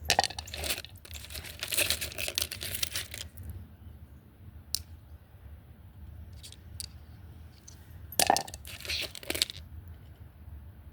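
Tumbled stones clattering and scraping against each other as they are handled: a rattling burst of about three seconds, a few single clicks, then a second shorter burst near the end.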